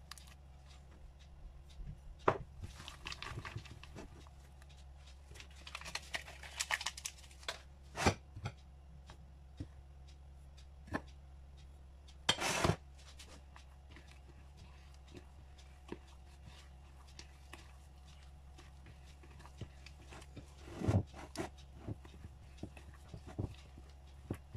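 Hands squeezing and kneading soft butter cookie dough in a bowl: intermittent sticky squelches and light knocks against the bowl, with one brief louder noise about halfway through. A low steady hum runs underneath.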